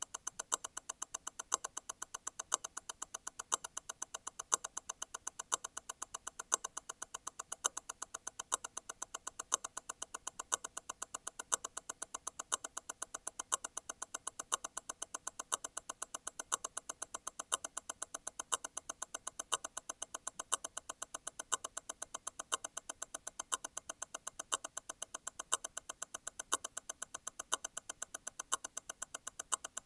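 Grand Seiko T0 Constant-force Tourbillon movement ticking at 28,800 vibrations per hour, eight beats a second. About once a second a louder click stands out: the stop wheel of the constant-force mechanism releasing and striking again once every eight vibrations.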